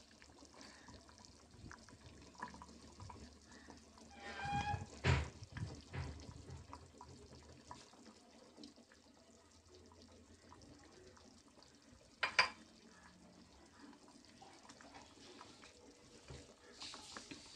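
Fish curry simmering in an aluminium pot, a faint bubbling of liquid, with a louder clatter about five seconds in and a sharp clink about twelve seconds in. Near the end a steel ladle stirs through the curry.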